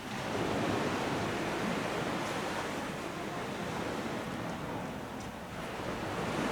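Sea surf washing onto the beach, a steady rushing noise that swells and eases.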